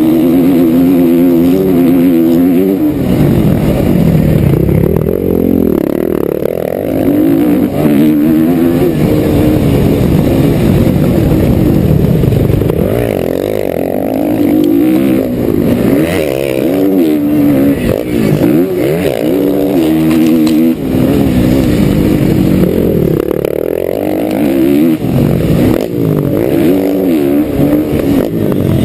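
Motocross bike engine at racing speed, revving hard and dropping back again and again as the rider works through corners and a jump, heard from a camera mounted on the bike.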